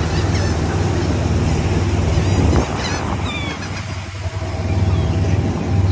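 Boat engine running with a steady low drone, under the rushing noise of wind and the churning wake. A few short, high gull cries come through near the start and about halfway through.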